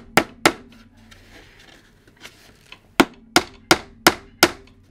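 Hammer driving a small nail through 12 mm MDF into the edge of a side panel. It strikes twice sharply at the start, taps lightly twice after a pause, then strikes five times quickly, about three a second.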